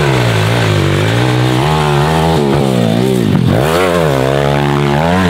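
MRF 140 pitbike's four-stroke single-cylinder engine revving under hard riding, the revs rising and falling with the throttle. About three and a half seconds in, the revs drop sharply and climb straight back up.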